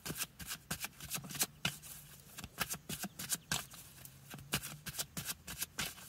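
A deck of oracle cards being shuffled by hand: a run of quick, irregular card flicks and taps, several a second, over a faint low hum.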